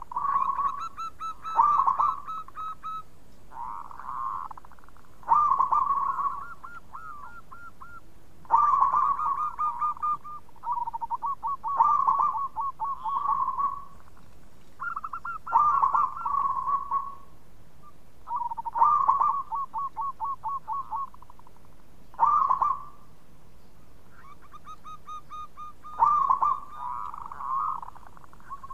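Zebra dove (perkutut) cooing: phrases of quick, stuttering notes, each a second or two long, repeated every few seconds.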